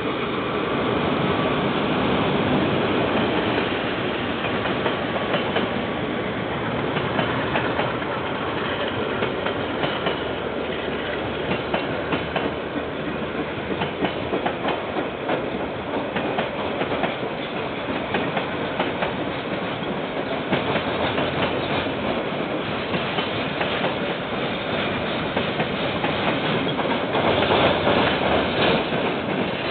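KiwiRail freight train rolling past, container wagons clattering steadily over the rails. Heard through a security camera's microphone, it sounds dull and thin at the top, and it grows a little louder near the end.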